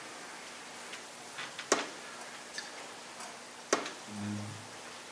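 Sharp clicks about every two seconds over quiet room tone, with a short low hum about four seconds in.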